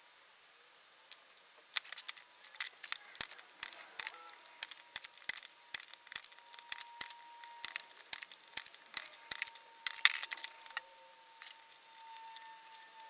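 Irregular small clicks, taps and crinkles of tools and small parts being handled at a workbench, as the MOSFETs and heatsink insulators of a hoverboard controller board are swapped out. A faint steady high tone runs through the second half.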